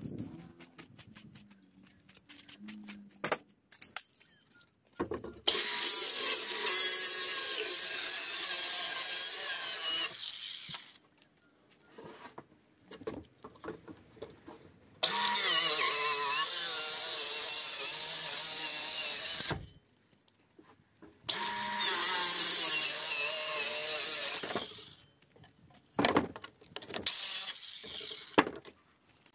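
A power tool run in three long bursts of four to five seconds each, with clicks and knocks between them.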